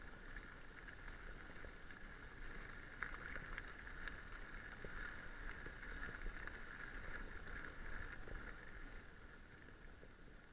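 Mountain bike rolling along a gravel forest track: tyre noise on the gravel with a steady whirring hiss, a low rumble and scattered small clicks and rattles.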